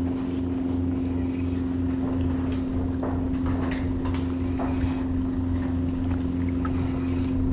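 Boat motor running with a steady, even hum, with a few faint short ticks and swishes over it.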